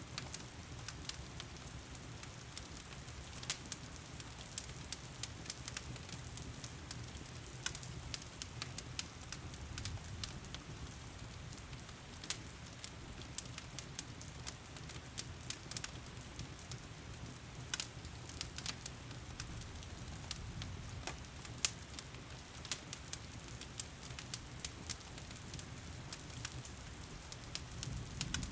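Wood fire crackling, with frequent irregular sharp pops and snaps, over the steady hiss of heavy rain and a low, even rumble.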